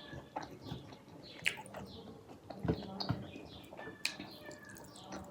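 Close-miked chewing and mouth sounds of someone eating rice with curry and greens: scattered soft clicks and smacks.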